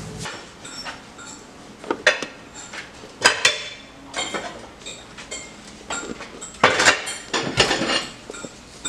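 Plastic kitchenware knocking and clattering: a measuring jug handled and tipped against a food processor bowl as flour is poured in. The knocks are sharp and uneven, with the loudest a little after three seconds and a cluster around seven seconds.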